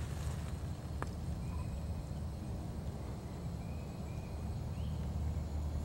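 Flooded-forest ambience: a steady low rumble with faint, short high animal calls every second or so, and a single click about a second in.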